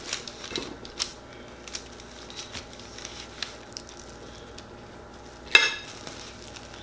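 Plastic cling wrap rustling and crinkling as it is handled and laid around food, with light clicks of kitchen tongs. One sharp, ringing metallic clink comes about five and a half seconds in.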